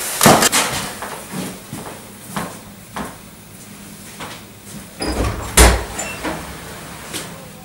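A few footsteps across a room, then a door opened and shut with a heavy thud about five and a half seconds in.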